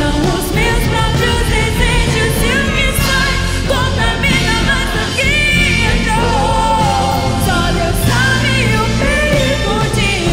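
A woman singing a Portuguese-language worship song with a live orchestra, violins among it.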